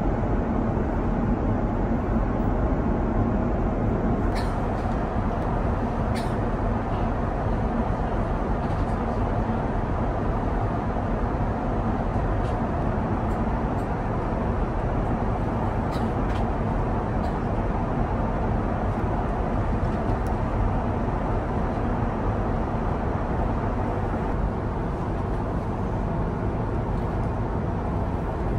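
Steady cabin noise of an Airbus A350 airliner at cruise: a constant, even rush of airflow and engine noise heard inside the cabin, with a few faint light clicks.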